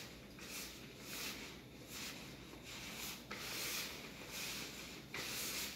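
Hands kneading stiff, crumbly cookie dough of flour, sugar and margarine in a plastic bowl: a run of repeated rough rubbing strokes, roughly one or two a second.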